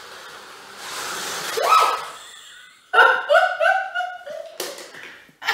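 Scalextric Mini Cooper slot cars' small electric motors whirring around the track, with a brief rising squeal near two seconds. From about three seconds in, a woman laughs hard in a run of quick bursts, about four a second, which is the loudest sound here.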